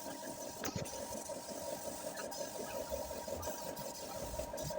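Steady hum of a running machine with a fast, fine rattle and a thin steady tone, broken by a few faint clicks.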